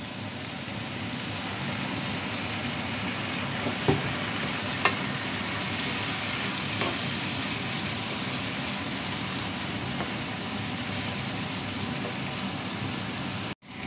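Chopped pork for sisig sizzling steadily in a hot buttered pan just after soy sauce is poured in, stirred with a wooden spatula, with two sharp knocks about four and five seconds in. The sound cuts out briefly near the end.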